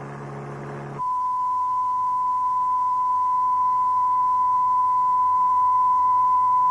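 A low hum for about a second, then a steady pure 1 kHz test tone that starts abruptly and holds without change: a reference tone for training the ear to recognise noise frequencies.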